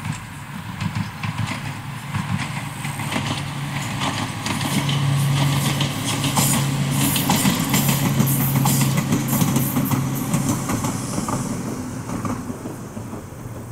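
Ohmi Railway 800-series electric train passing, with rapid clicking of its wheels on the track over a steady low hum. It grows louder to a peak midway, then fades as it moves away.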